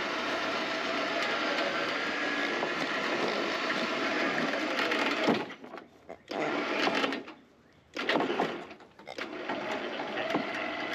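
Electric trailer winch motor whining as it reels in cable under load, dragging a motorcycle toward the trailer. It runs steadily for about five seconds, then stops and starts in short bursts.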